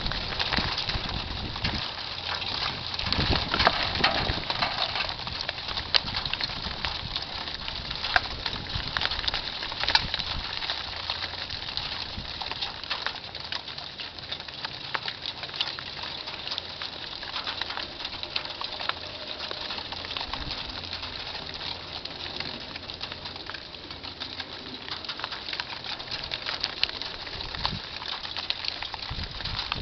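Freezing rain falling: a dense, steady pattering of icy drops with many sharp individual ticks and clicks, easing a little after about ten seconds.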